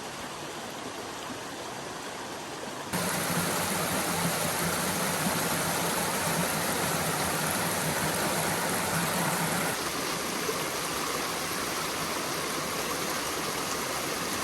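A creek's water rushing and splashing over rocks in a steady wash of noise that jumps suddenly louder about three seconds in and eases a little later on.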